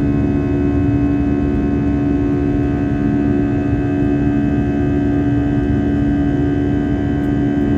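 Passenger aeroplane's engines and airflow making a steady drone, with a constant hum over an even rushing noise.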